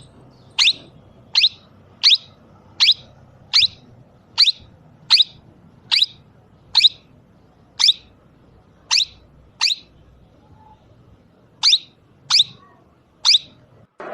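Pet parrot giving a run of about fifteen short, sharp, high-pitched calls, roughly one or two a second, with a pause of about two seconds two-thirds of the way through.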